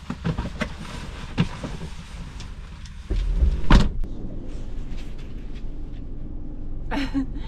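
Clicks and knocks of things being handled inside a vehicle, the loudest a sharp knock about four seconds in, over a low engine rumble that grows louder about three seconds in.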